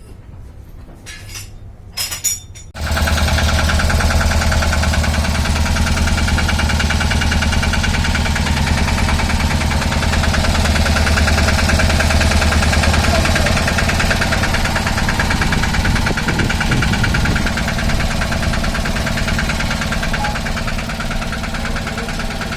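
A few clicks, then an auto rickshaw's engine starts abruptly about three seconds in and keeps running steadily at idle, with a strong low hum that eases a little about two-thirds of the way through.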